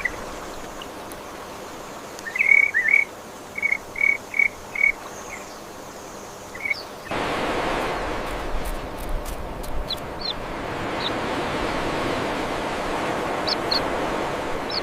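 Short bird chirps repeated about eight times over a quiet outdoor background. About seven seconds in, this changes abruptly to a louder, steady outdoor hiss with a few faint high chirps.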